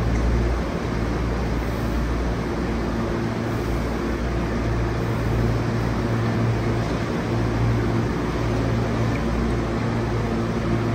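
Steady low rumble and hum of an electric train, with a few constant hum tones and no change in level.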